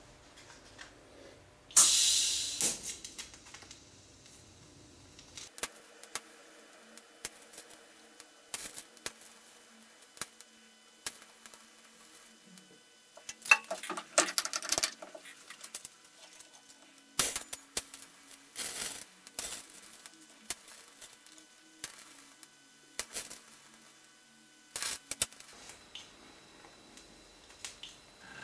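Scattered clicks and metallic knocks as a steel workpiece is set in a bench vise and the vise handle is worked, with a short hiss about two seconds in.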